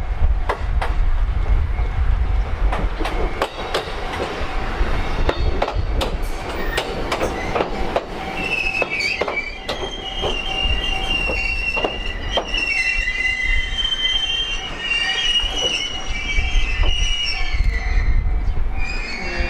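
Ichibata Electric Railway electric train running through the station: wheels clicking over rail joints and points against a low rumble, then the wheels squealing in high wavering tones for about ten seconds from roughly halfway through.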